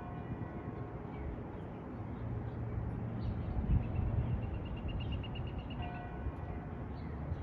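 Church bell tolling the noon hour. One stroke rings and fades at the start, and the next strikes about six seconds in. Between the strokes a bird gives a quick high trill and there is a low rumble.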